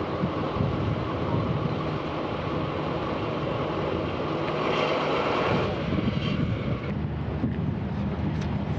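Rail train carrying the Soyuz-FG rocket on its transporter car rolling slowly, a steady low rumble with rail noise.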